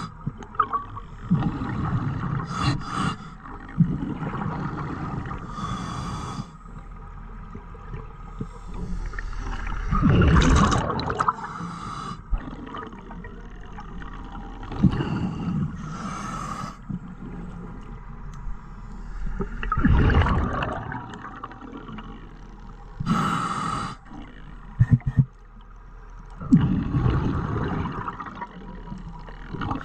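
Scuba diver breathing through a regulator underwater: slow breaths, each a short hiss of inhalation and then a louder rush of exhaled bubbles a few seconds later, about three breaths in all.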